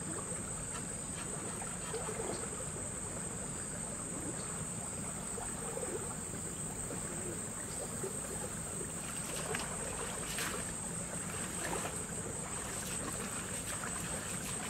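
Water sloshing and splashing in a shallow stream as legs wade through it, over a steady high-pitched insect drone.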